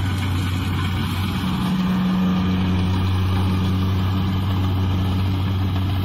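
Kubota DC-70 rice combine harvester running at a steady pace while harvesting, its diesel engine a constant low drone.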